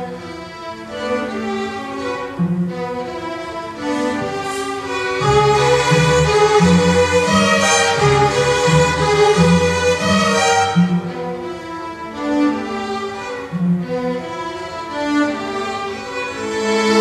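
An orchestra's bowed strings playing: violins over cellos and double basses, with shifting sustained notes. The low strings swell in fuller and louder about a third of the way in, then drop back to a softer passage.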